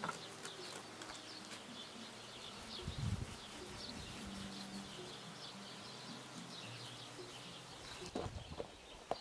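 Faint outdoor birdsong: small birds chirping repeatedly, with a few soft knocks about three seconds in and again near the end.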